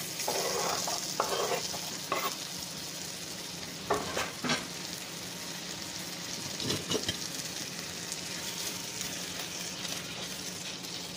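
Raw chicken pieces sizzling in melted butter in a frying pan. There are a few short knocks and scrapes as the pieces are added and stirred with a spoon.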